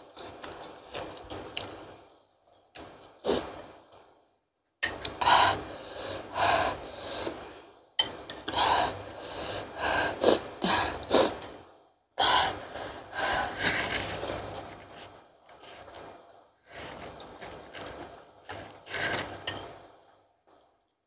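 Close-miked eating of chili-hot instant noodles with meatballs: slurping, chewing and sharp gasping breaths in bursts of a few seconds with short pauses between them. The gasping is panting from the bird's-eye chili heat.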